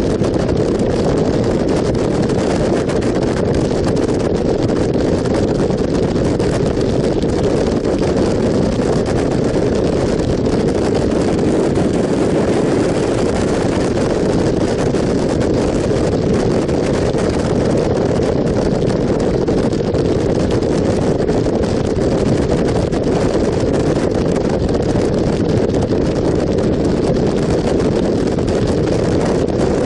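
Motorcycle cruising at a steady road speed: engine running evenly under constant wind noise on the microphone, with no change in revs.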